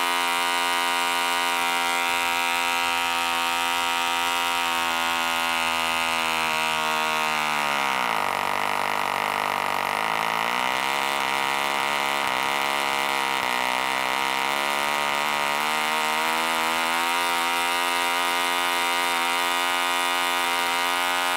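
1945 Rocket Victor 7.37 cc two-stroke spark-ignition model engine running fast on a wooden propeller. About eight seconds in its pitch drops sharply as it slows. It then picks up again in steps, sags once more around fourteen seconds, and is back to full speed for the rest. The owner puts the faltering down to compression leaking around the spark plug.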